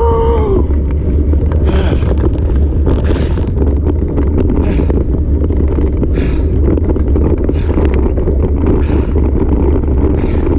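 Wind buffeting the microphone over the rumble and rattle of a bike riding fast along a dirt trail, with a short hiss recurring about every second and a half. There is a brief squeak at the very start.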